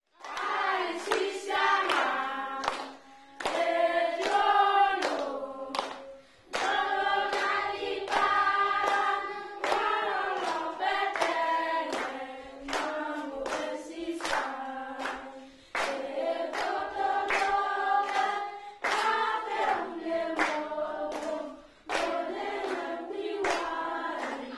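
Choir singing in several-voice phrases, with hand claps keeping time; it starts abruptly out of silence.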